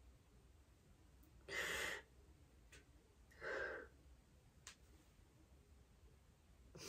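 A woman crying quietly, drawing two short, sharp tearful breaths, about a second and a half and three and a half seconds in, with a couple of faint clicks between.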